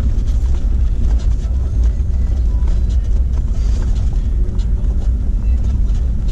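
Steady low rumble of a vehicle driving slowly over a rough gravel and dirt road, heard from inside the cab, with small scattered knocks and rattles from the uneven surface.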